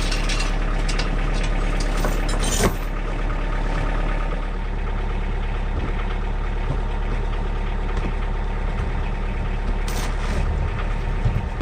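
Diesel engine of a Kioti DK40se tractor running steadily, easing off a little at about two and a half seconds and again at about four and a half seconds. A sharp knock sounds at about two and a half seconds in, and a few brief clatters come near the start and near the end.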